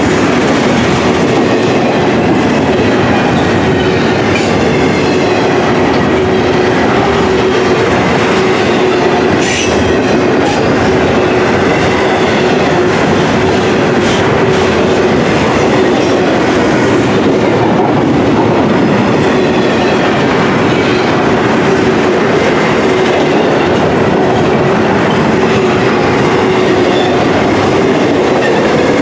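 Double-stack intermodal well cars rolling past: a steady, loud rumble and rattle of steel wheels on rail, with a few brief clicks.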